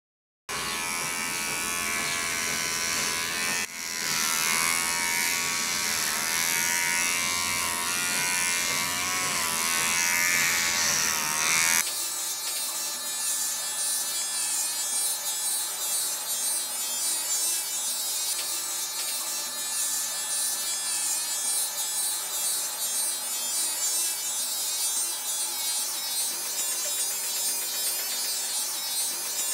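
Electric hair clipper buzzing as it cuts through hair, its tone changing abruptly about twelve seconds in and settling into a steadier buzz.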